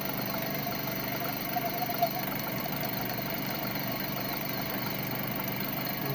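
Lathe running steadily with a machine hum of several steady tones, and a brief sharper peak about two seconds in.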